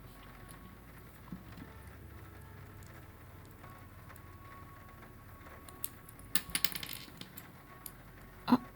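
Small plastic LEGO pieces clicking and rattling as they are handled and fitted together: a few faint clicks, a quick rattling cluster a little past six seconds in, and one sharper click near the end.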